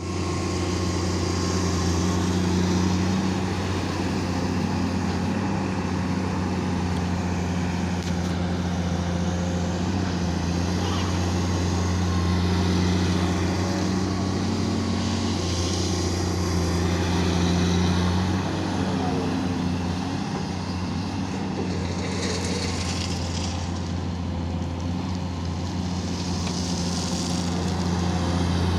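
Komatsu PC210 excavator's diesel engine running steadily, a low hum whose loudness swells and eases a little every several seconds.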